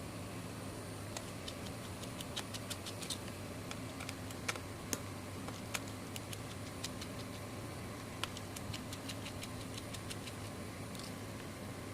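Light, irregular clicks and taps of small tools and parts handled on a smartphone being taken apart, over a steady low hum.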